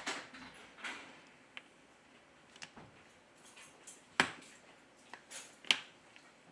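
Small clicks, taps and short scrapes of hand work on a phone, with two sharper clicks about four and five and a half seconds in.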